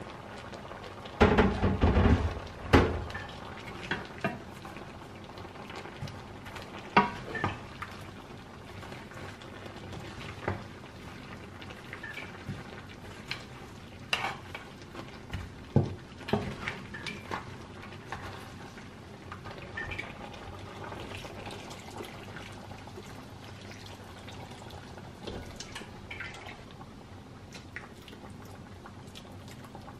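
Kitchen cooking sounds: pots, dishes and utensils clinking and knocking over a steady bubbling of liquid on the stove. There is a short burst of clattering about a second in.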